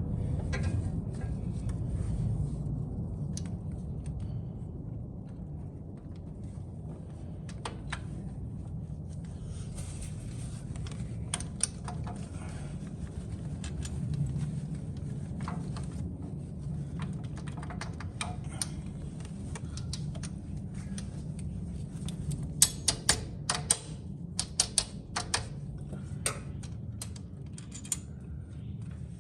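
Light metallic clicks and taps of a rocker-arm and camshaft assembly being worked down onto the engine's cylinder head, scattered at first and coming in a quick cluster near the end, over a steady low hum.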